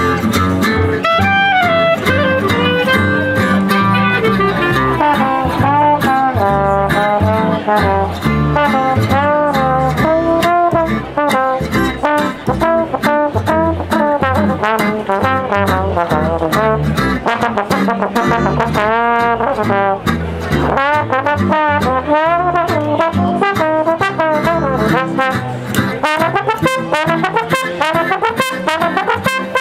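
Music with a bending, wavering melody line over a steady beat.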